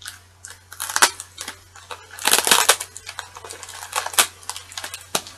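A pink mailer envelope being handled and pulled at to get it open: crisp crinkling and crackling with sharp snaps, with a denser burst of rustling about two and a half seconds in.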